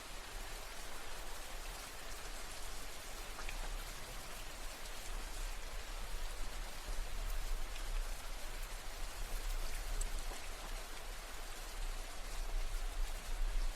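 Steady rain falling on a surface: an even hiss with scattered individual drops ticking through it, and a low rumble underneath.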